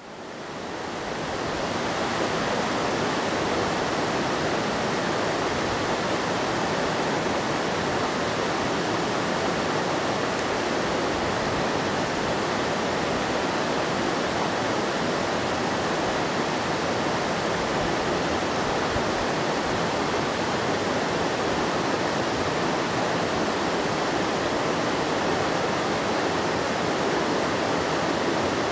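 A mountain river swollen after two days of rain, rushing steadily over rocks and a small cascade; it fades in over the first couple of seconds.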